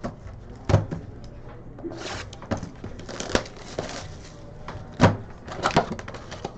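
Several sharp taps and knocks with short bursts of rustling, from cards and packs being handled on a table.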